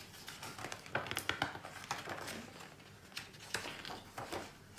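Paper pages of a large picture book being turned by hand: a series of short rustles and flaps.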